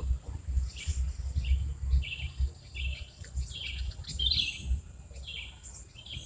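Small birds chirping in short, repeated high calls, over an uneven low rumble.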